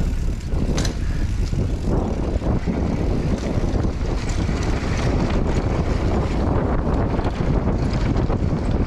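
Wind buffeting the microphone over the rumble of mountain-bike tyres on a dirt and gravel trail at speed, with short rattles and knocks from the bike over rough ground.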